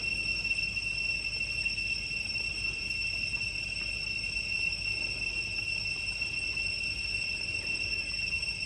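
Steady high-pitched drone of insects, one unbroken tone with overtones, over a low rumble.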